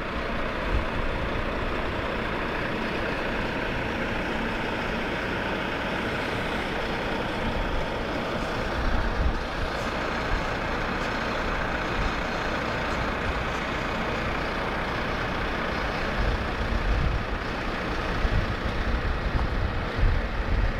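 Volvo FM concrete mixer trucks driving past one after another, their diesel engines running with a steady rumble. The rumble grows rougher and more uneven near the end as a mixer passes close by.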